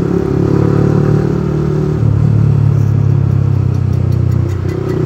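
Yamaha R15 V3's 155 cc single-cylinder engine running at low road speed. Its note changes about two seconds in and again near the end.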